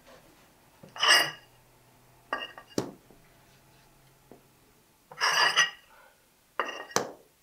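Thick porcelain floor tiles clinking and scraping against one another as they are handled and set into mortar: four short clattering bursts, each ending in a sharp clack.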